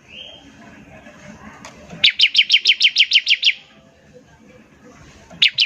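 Bar-winged prinia (ciblek) giving its rapid 'ngebren' burst: a fast run of about a dozen sharp repeated notes, about eight a second, lasting about a second and a half, starting about two seconds in. A second burst begins near the end.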